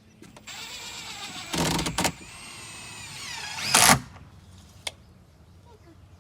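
Cordless drill driving screws into T1-11 siding: the motor whines and shifts in pitch as it speeds up and slows, with two louder bursts, about a second and a half in and again near four seconds.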